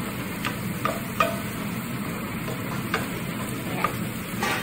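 Diced onions sizzling steadily in hot ghee in a pan, stirred with a wooden spoon that gives a few short scrapes and taps against the pan.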